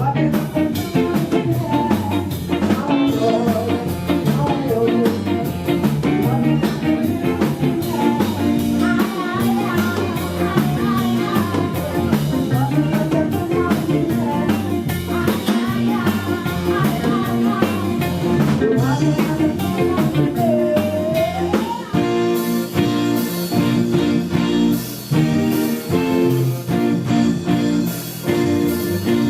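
Rock band playing with singing, electric guitar, bass and drum kit. About two-thirds of the way through, the cymbals grow brighter and the band hammers repeated chords.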